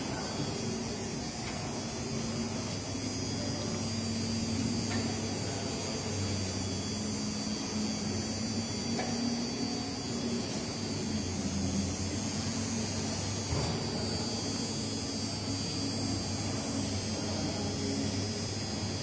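Steady background hum of a large exhibition hall, a low drone with a constant high hiss over it and a few faint clicks.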